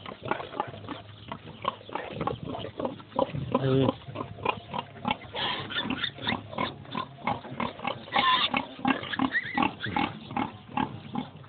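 A group of pigs crowding a feed trough, grunting and feeding in a busy run of short noises, with louder pitched calls about four seconds in and again near eight seconds.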